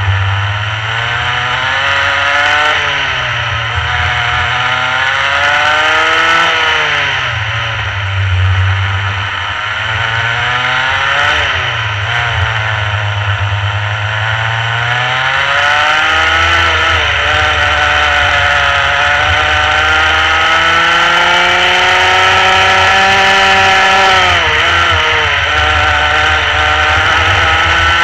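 Rotax Mini Max kart's 125 cc two-stroke engine at racing pace, its pitch climbing steadily and then dropping sharply, again and again. Four short climbs come in the first half, then one long climb, a sharp dip near the end and another climb.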